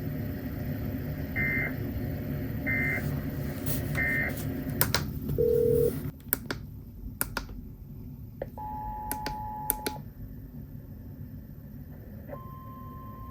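Emergency Alert System end-of-message: three short squawking data bursts about a second apart, then a brief lower beep, over steady radio hiss. About halfway through, the hiss drops away and scattered clicks follow. A short two-tone attention signal sounds, then a steady single alert tone begins near the end.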